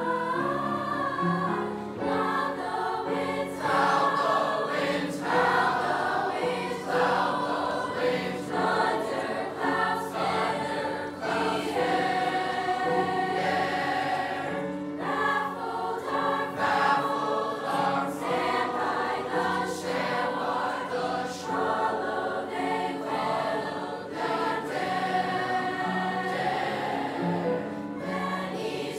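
Mixed youth choir of boys and girls singing a song together, voices sustained and moving from note to note without a break.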